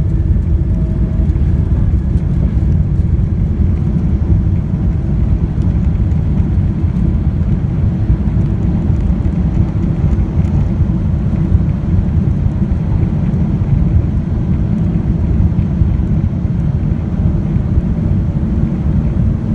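Boeing 777-200ER cabin noise: a steady low rumble as the airliner rolls on the ground after touchdown.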